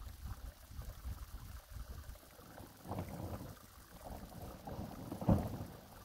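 Wind buffeting the microphone in irregular low gusts, with the strongest gust about five seconds in.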